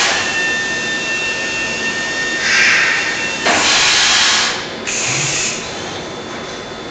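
Panasonic welding robot cell running: a steady machine hum with a thin high whine that stops about three seconds in, and several bursts of hissing noise in the second half.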